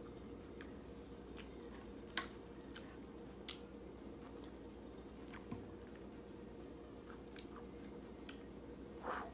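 Close-miked chewing and wet mouth sounds of someone eating, with a few sharp clicks and a louder short smack near the end, over a faint steady hum.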